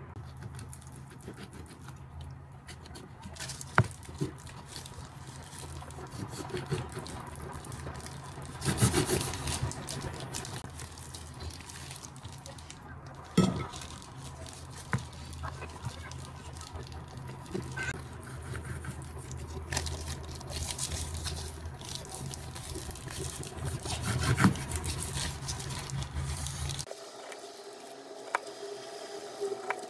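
Kitchen knife slicing through a raw salmon fillet on a cutting board, with soft handling noises and a few sharp taps of the blade against the board. A low steady hum runs underneath and cuts off suddenly near the end.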